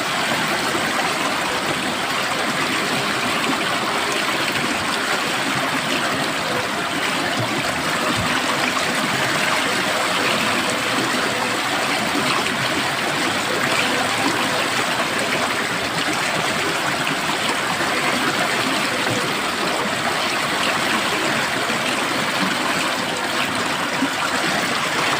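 Stream water flowing and splashing over stones, a steady rushing with gurgles and trickles in it.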